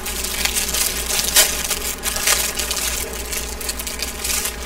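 Wrapper of a breastfeeding night-pad sample packet crinkling and tearing as it is pulled open by hand, a dense run of crackles.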